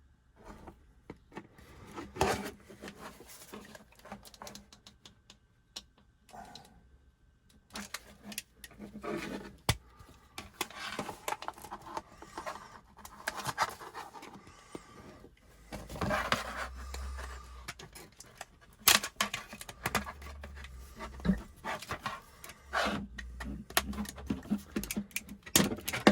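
X-Acto knife cutting and scoring the plastic cover of a CD case: irregular scraping strokes and sharp clicks as the blade drags through and snaps the plastic, with the case being handled and bumped, busier in the second half.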